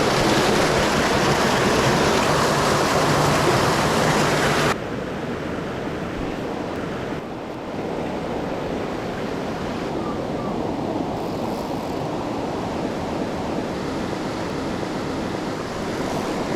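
Rushing water of a mountain trout stream, a steady noise; about five seconds in it drops abruptly to a quieter, duller rush.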